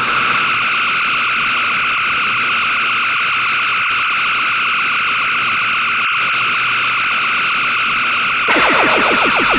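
Electronic science-fiction pulse-laser weapon sound effect: a steady, rapidly pulsing buzz held at one pitch. About eight and a half seconds in it turns louder and denser, with a fast run of falling sweeps over a low rumble.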